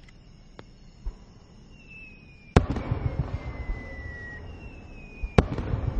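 Aerial firework shells bursting overhead: two sharp bangs about three seconds apart, each followed by a rumbling echo. Thin whistles slide down in pitch around each bang.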